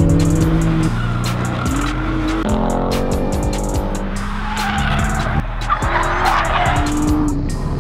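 High-performance cars lapping a race track, engines rising and falling in pitch as they rev and shift, with tyres squealing through a corner in the second half. Background music with a steady beat plays underneath.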